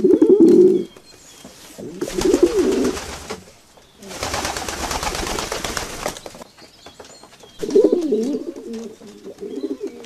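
A flock of feral pigeons cooing in low warbling bursts. About four seconds in comes a loud rush of flapping wings lasting about two seconds.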